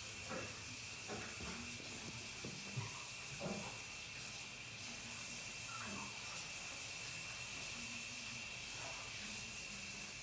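Steady hiss of room tone and recording noise with a faint high steady tone running through it. In the first few seconds there are a few soft knocks and thumps, one sharper than the rest.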